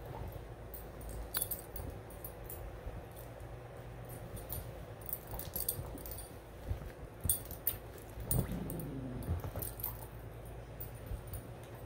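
A dog digging and pawing at blankets and a quilt on a bed to make a nest: fabric rustling and scratching, with the metal tags on its collar jingling now and then. A brief low sound falling in pitch comes a little after eight seconds in.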